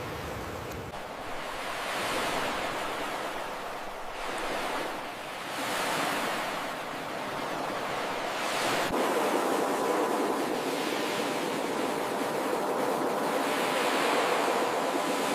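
Ocean surf: waves breaking and washing up the shore in a steady rush that swells and fades several times, with a small click just past the middle.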